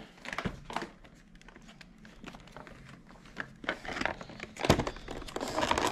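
A Pokémon TCG Eternatus VMAX collection box being opened by hand: scattered clicks and scrapes of cardboard. Over the last two seconds the cardboard and plastic packaging crinkle and rustle more loudly, with a few sharp clicks.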